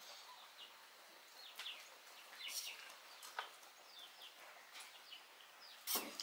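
Faint bird chirps scattered over a quiet rural background, with a few soft clicks and one sharp clatter about six seconds in.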